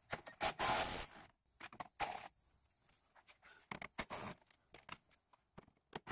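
Milwaukee cordless impact driver run in several short bursts, backing out the screws that hold a car's plastic under-engine splash guard.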